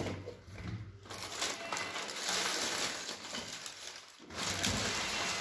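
Crumpled tissue paper and paper packaging crinkling and rustling as shoes are lifted out of their box and the stuffing paper is pulled from them, with a short pause a little after four seconds in.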